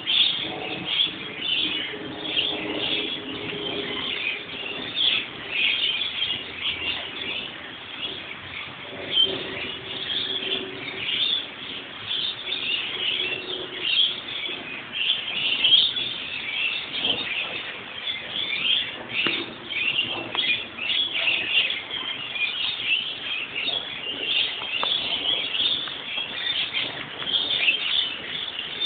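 A flock of lorikeets calling from a gum tree: a dense, continuous chatter of shrill, overlapping calls.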